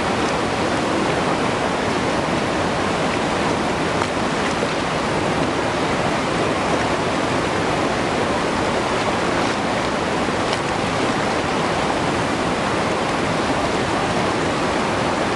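Whitewater rapids rushing steadily over a rocky riverbed.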